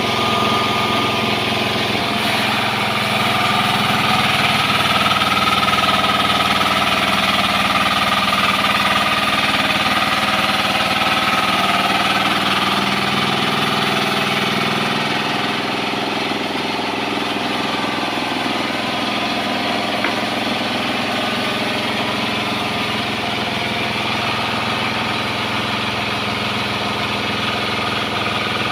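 An engine running steadily, swelling slightly about four seconds in and easing back a little after about twelve seconds.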